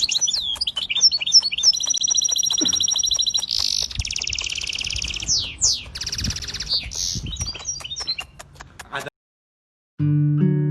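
A bird singing in fast, high chirps, trills and warbles with rapid clicking notes, stopping abruptly about nine seconds in. About a second later, strummed acoustic guitar music starts.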